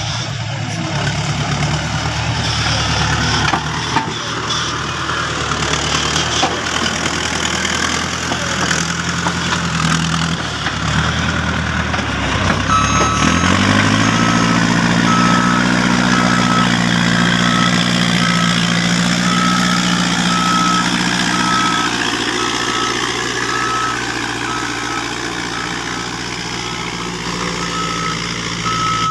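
Diesel engine of a heavy earthmoving machine running, revving up about halfway through as a reversing alarm starts beeping at a steady pace: the machine backing up.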